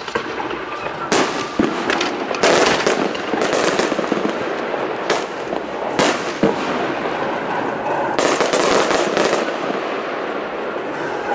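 Display fireworks bursting in the sky: a series of sharp bangs with crackling, several in quick succession about two to three seconds in and a longer crackling run around eight to nine seconds in.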